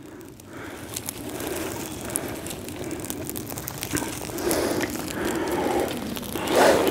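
Small birch-bark and twig tinder fire just catching: crackling, growing louder, along with dry bark and twigs rustling as more is laid on the flame.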